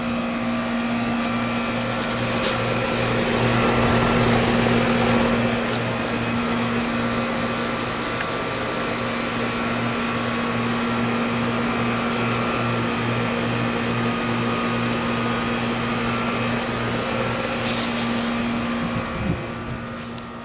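Goodman central air conditioner outdoor condensing unit running: a steady electrical hum from the compressor over the whoosh of the condenser fan. About nineteen seconds in, the hum drops away with a brief falling tone.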